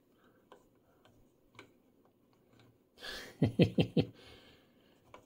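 Faint clicks as a front-panel knob on a Radiometer BKF6 distortion meter is turned. About three seconds in there is a short, loud burst of four quick pulses.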